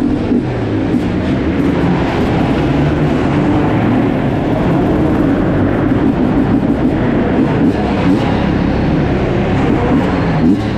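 Hard enduro motorcycle engine running at low revs while the bike is ridden slowly, its pitch rising and falling a little with light throttle.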